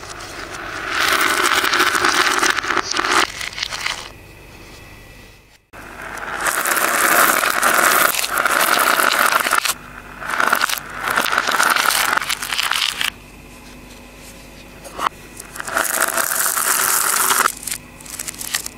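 Beads, glass gems and tiny glass vials clattering and scattering across a floor, with the sound played in reverse: several bursts of rattling, each swelling up and then cutting off suddenly, with short pauses between.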